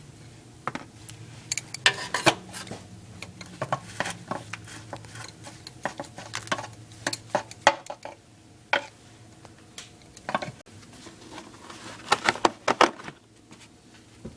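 Irregular metallic clicks and clinks of hand tools on the oil pan bolts, in clusters with short pauses, the busiest bursts about two seconds in and near the end.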